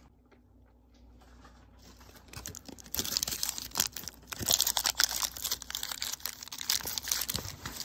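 Foil wrapper of a Lotte chocolate bar being crinkled and folded shut around the bar: a dense crackling with many sharp crinkles that builds from about two seconds in and is loudest from about three seconds on.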